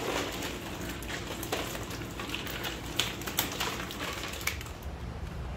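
Live fish flapping in a plastic basket as a keep net is lifted out of it, with water dripping: a run of irregular sharp taps and slaps over a wet rustle, loudest about three seconds in.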